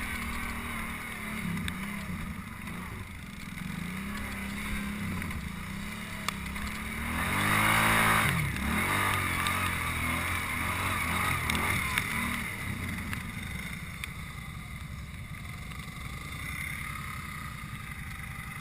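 ATV engines running on a muddy trail, their pitch rising and falling with the throttle. About seven seconds in, one machine revs up and grows loud for a couple of seconds, then drops back to a steadier running sound.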